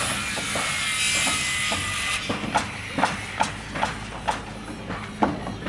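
Construction-site noise: a steady machine hum for about two seconds, then a run of sharp hammer strikes, about two or three a second, each with a short ring.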